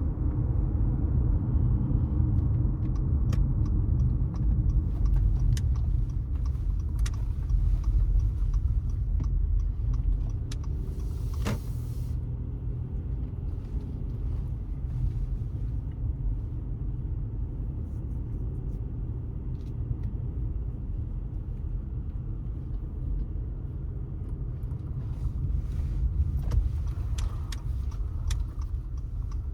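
Car driving through city streets: a steady low road and tyre rumble, with scattered light clicks and rattles and one brief sharp sound about eleven seconds in.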